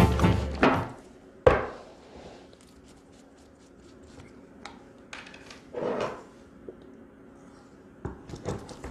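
Handling of a metal can of Raptor bed liner and a schutz applicator gun on a wooden workbench: one sharp knock about a second and a half in, then scattered clicks and scrapes, with a few more near the end as the gun is fitted onto the can.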